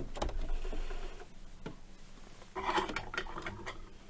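Janome electric sewing machine running briefly as it finishes stitching a patchwork seam, stopping about a second in. A couple of seconds later comes a short clatter and rustle as the sewn fabric block is handled and pulled from under the presser foot.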